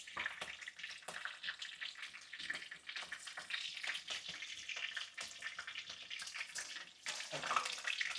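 Cumin, bay leaf and green chillies sizzling in hot oil in a kadhai, a steady frying hiss dotted with many small pops and crackles.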